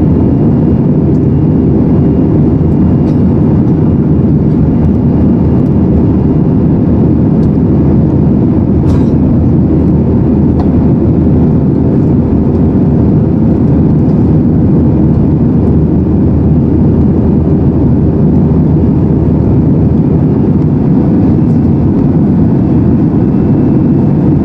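Cabin noise of an Airbus A320-212 climbing after takeoff: its CFM56 turbofan engines and the airflow give a loud, steady, low rush with a faint hum over it.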